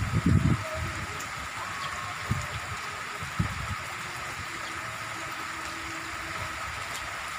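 Heavy rain falling, a steady hiss, with a few low thumps in the first half.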